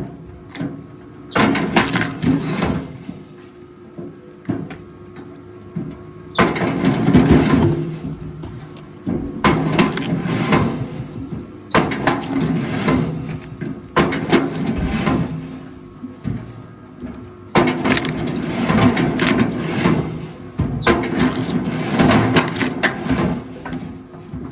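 Rail log splitter at work: its motor hums steadily while logs creak, squeal and crack apart, in loud passes a few seconds long that come again and again.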